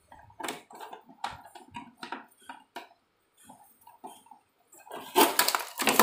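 Plastic RO membrane housing being handled and pushed into its mounting clips inside a water-purifier cabinet: a run of light knocks and scrapes of plastic on plastic, with a louder, denser cluster of knocking and rubbing about five seconds in.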